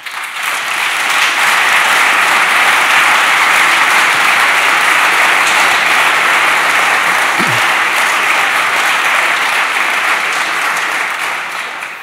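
Audience applauding in a large hall, swelling over the first second, holding steady and dying away near the end.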